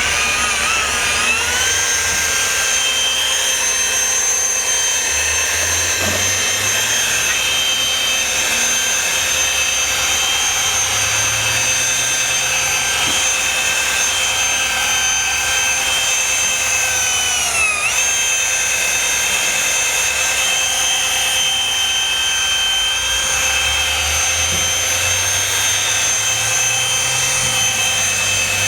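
Electric machine polisher running steadily while applying polish with a pad to a boat's gelcoat. Its whine rises as it spins up over the first couple of seconds, then dips in pitch briefly about two-thirds of the way through and recovers.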